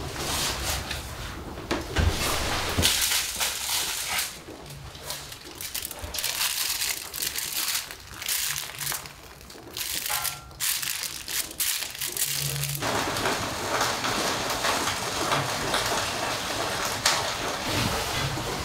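Split firewood knocked and dropped into a small cast-iron wood stove through its top loading lid: irregular wooden and metal clunks, then aluminium foil handled on the stove top. About thirteen seconds in the sound switches suddenly to a steady hiss.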